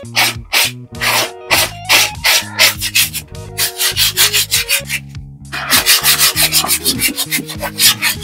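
Coarse sandpaper rubbed by hand in rhythmic back-and-forth strokes over hardened polyester body filler on a car panel, about three strokes a second, quickening after a short pause about five seconds in.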